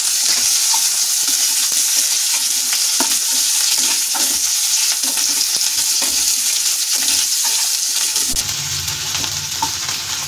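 Chopped onions sizzling steadily in hot oil in a kadhai, stirred with a wooden spatula with small scrapes and knocks against the pan. A low steady hum comes in about eight seconds in.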